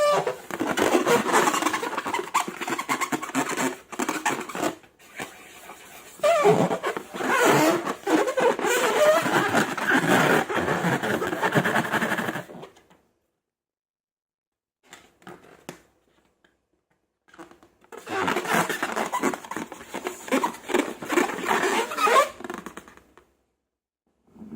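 Slime being worked by hand, a wet squelching full of small clicks and pops. It runs in two long stretches, with a pause of several seconds in the middle.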